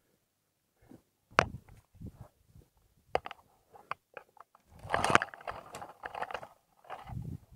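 Footsteps crunching and snapping dry twigs and leaf litter while a hiker climbs a creek bank through dry scrub, with brush rustling against him. Irregular sharp snaps and crunches, thickening into a longer stretch of rustling about five seconds in.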